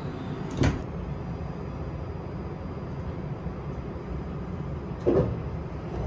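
Steady low running rumble inside a Linimo 100-series HSST maglev car on the move, with two brief knocks, one about half a second in and one about five seconds in.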